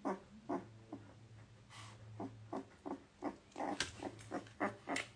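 A two-week-old Greater Swiss Mountain Dog puppy making a string of short, irregular little grunts and squeaks.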